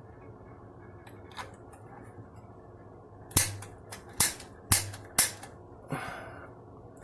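Piezo igniter of a gas water heater's pilot snapping as the pilot is being lit: five sharp clicks spread over about two and a half seconds, starting about three seconds in, with a couple of fainter clicks before.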